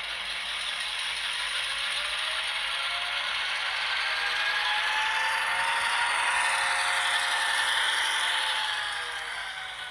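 Model WAGR XA class diesel locomotive with an ESU sound decoder running along the track. The decoder's diesel engine sound plays through its small speaker over the rattle of the wheels and drive. It grows louder to a peak about six to eight seconds in, then fades, and the engine note rises and then falls in pitch.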